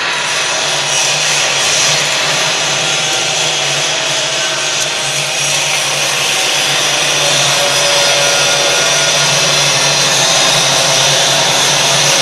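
Steady, continuous machine noise: a motor-driven machine running with an airy hiss over a low hum.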